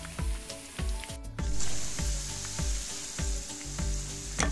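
Hot oil sizzling steadily as spinach and gram-flour bondas deep-fry in a kadai. The sizzle gets louder about one and a half seconds in. Background music with a steady beat plays under it.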